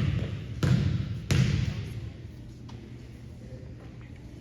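Basketball dribbled on the court: three bounces about two-thirds of a second apart, then faint hall noise for the rest.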